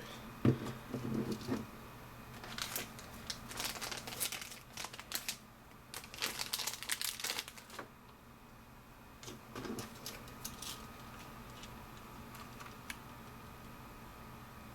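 Plastic packaging crinkling and rustling in short bursts while camera gear is handled, with a soft knock about half a second in. The handling noise dies down after about eight seconds, leaving a faint steady hum.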